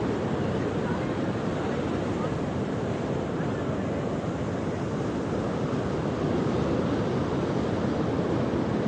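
Steady rush of ocean surf and wind, an even noise with no breaks.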